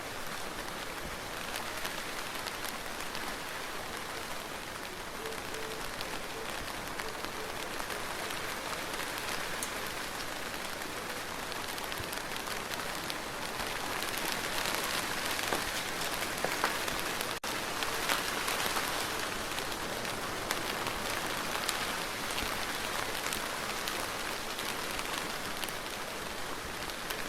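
Steady rain falling on a hard surface, with individual drops pattering through the hiss. It grows a little heavier partway through.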